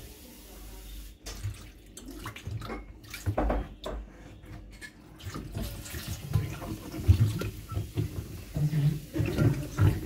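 Water poured from a plastic bottle over the rubber door seal of a front-loading washing machine, splashing and trickling into the steel drum as leftover baking soda is rinsed off.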